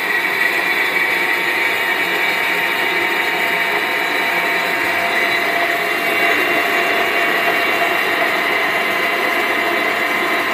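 Flipkart SmartBuy 500-watt mixer grinder running steadily, grinding coriander in its steel jar with the lid held down by hand.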